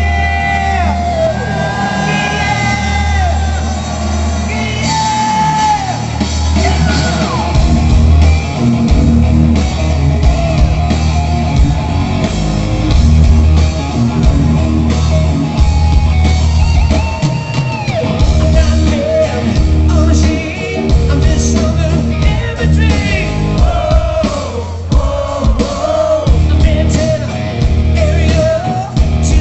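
Live rock band playing through a PA: drums, electric guitars and bass, with a male lead singer singing over them.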